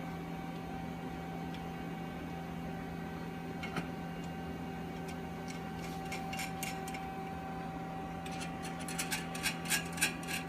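Light metallic clicks and clinks from hardware being handled on the steel plate as the ½-20 nuts go on: a few scattered ticks, then a quick run of clicks in the last two seconds, over a steady low hum.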